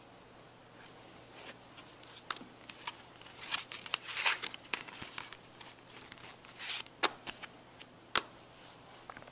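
A deck of playing cards being handled: rustling as the cards are spread and pushed through the hands, with a few sharp card clicks spaced out over the stretch.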